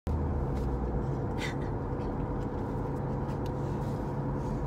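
Steady low vehicle hum of an engine running, with a few faint clicks.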